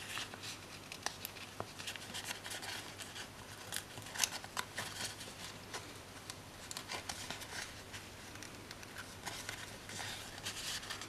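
Paper sticker sheet being bent and stickers peeled from it by hand: faint rustling and crinkling of paper with scattered light clicks and taps.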